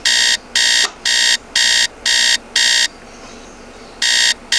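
Electronic alarm clock beeping, about two beeps a second. The beeps stop for about a second, then start again near the end.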